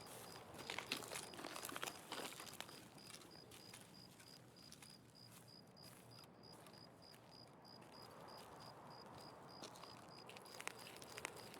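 Faint high-pitched chirp repeating about three times a second, with light rustling and crinkling near the start and again near the end.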